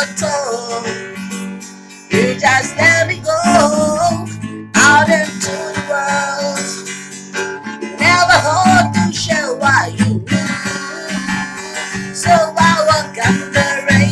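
A woman singing while strumming an acoustic guitar; the strumming drops away briefly about two seconds in, then comes back in.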